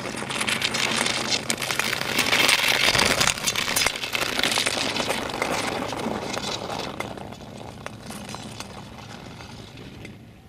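Speed-skate blades scraping and grinding over rough natural ice as a pack of marathon skaters passes close by, loudest a few seconds in, then fading away.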